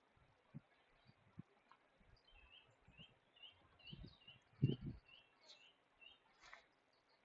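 A small bird singing a series of short, evenly repeated high notes, about three a second, that starts about two seconds in and stops near the six-second mark. Faint low thumps of wind or handling on the microphone, the loudest a little before five seconds in.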